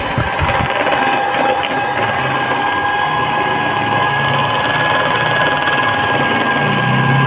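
Electric hand mixer running steadily, its twin beaters whirring through a runny egg-and-butter mixture in a plastic jug, with an even motor whine.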